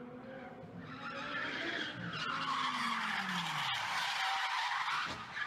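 White Audi R8 supercar pulling away hard through a turn: the engine revs while the tyres squeal. The squeal builds over the middle and cuts off near the end.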